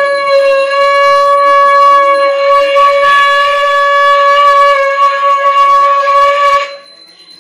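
Conch shell (shankh) blown in one long, loud, steady note with a slight waver in pitch. It grows brighter and stronger about two seconds in and cuts off sharply near the end.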